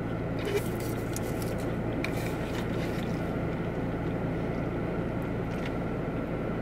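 Steady low hum inside a car cabin, with a few faint rustles and clicks about half a second and two seconds in as a drink cup is picked up.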